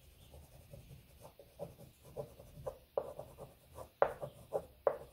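Oil pastel scratching across grainy sugar paper in short back-and-forth colouring strokes, about two to three a second, louder from about three seconds in.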